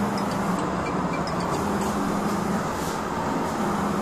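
Homemade waste-oil burner stoves running with their small electric blower fans forcing air into the flames: a steady rushing roar with an even hum underneath and a few faint light ticks.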